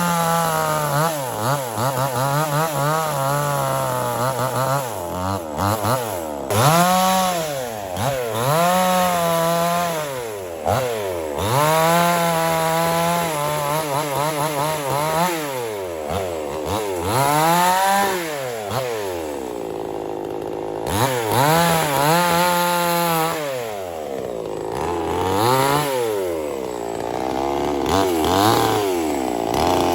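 Chainsaw running, most likely cutting wood, its motor pitch repeatedly rising and falling every second or two.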